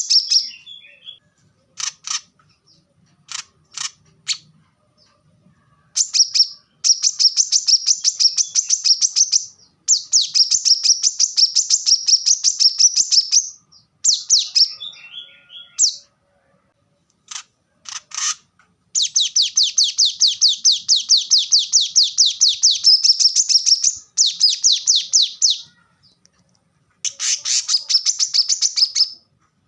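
Brown-throated sunbird singing in close-packed, rapid-fire bursts of sharp, high notes, about seven a second, each burst lasting a few seconds, with a few single chips in the gaps between.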